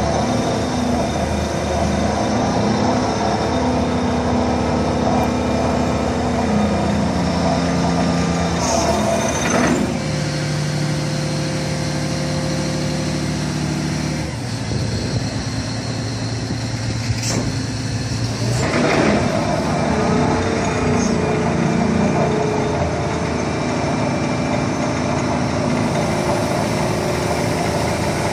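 Doosan DX420 excavator's diesel engine and hydraulic pumps running steadily as the tilting tunnelling boom is moved. The engine and pump tones shift pitch several times as the hydraulics take load, and there is a brief rushing sound about ten seconds in and again a little past halfway.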